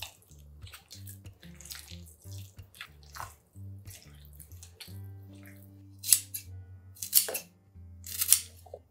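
Thick red-pepper kimchi seasoning paste being stirred and folded with a spatula in a plastic bowl: separate wet, squelching strokes, the loudest three near the end, over soft background music with a steady bass line.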